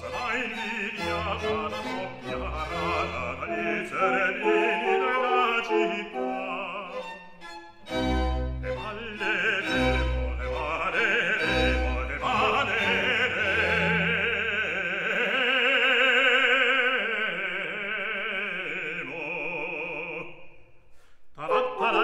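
Background music: a classical operatic voice singing over orchestral accompaniment. In the second half the voice holds one long note with vibrato, which breaks off briefly near the end.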